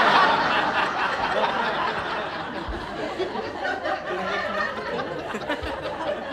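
Audience laughing hard at a punchline, loudest at the start and fading gradually.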